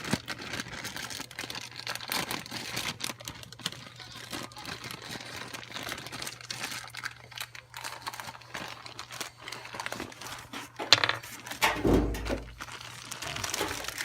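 Plastic packaging crinkling and rustling as the parts of a fuel pump kit are unwrapped and handled, with a couple of louder knocks and a dull thud near the end.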